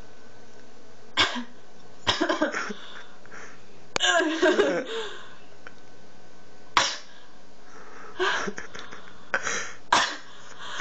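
A woman working up a sneeze: a series of short breathy sniffs and cough-like bursts a second or two apart, with a longer voiced burst about four seconds in. Two sharp clicks sound about four and seven seconds in.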